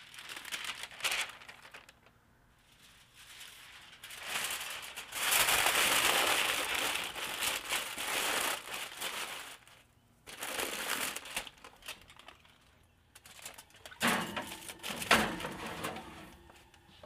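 Aluminium foil and parchment paper being crinkled and pressed around a metal roasting pan, in several bursts of rustling. Near the end comes a short knock and clatter, with the foil-covered pan being slid into the oven.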